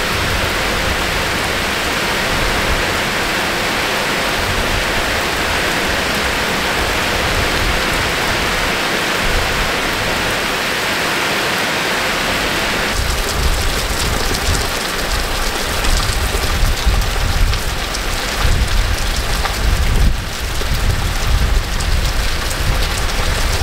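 Heavy rain pouring steadily onto pavement, a loud, even hiss. About halfway through, the hiss thins and a low, uneven rumble comes in under the rain.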